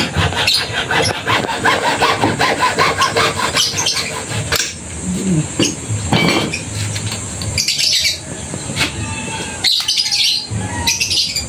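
Birds chirping and squawking, with a run of quick, repeated chirps in the first few seconds.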